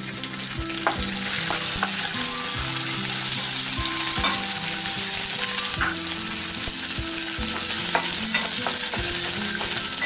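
Sliced green chillies sizzling in hot oil in a kadai with tempered mustard seeds, chana dal, urad dal and dried red chillies, stirred with a wooden spatula that scrapes and knocks against the pan now and then. They are being sautéed until their aroma comes up.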